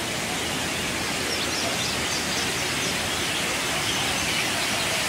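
Steady rushing of a waterfall cascading over rocks. A bird chirps faintly in a quick short series about a second and a half in.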